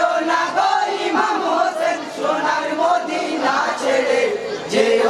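Chorus of men's voices chanting a Bengali marsiya, a Muharram lament, together without pause, with a fresh loud entry near the end.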